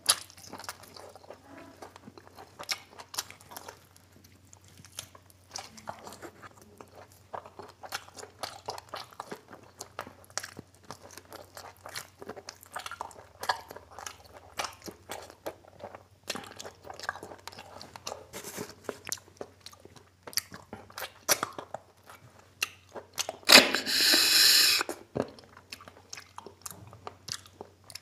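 Close-miked eating: chewing, lip smacks and crunching as pieces of goat mutton are gnawed off the bone, in many short clicks and crackles. Near the end, a loud sucking noise lasting over a second.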